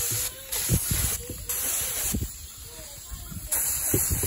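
Harbor Freight paint spray gun hissing in short trigger bursts of under a second each, with a pause of about a second in the middle, as paint is misted over leafy branches laid on the hull to stencil leaf shapes.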